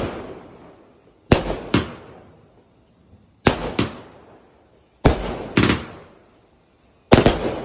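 Aerial fireworks bursting overhead: sharp bangs, mostly in quick pairs, coming about every one and a half to two seconds, each tailing off after the burst.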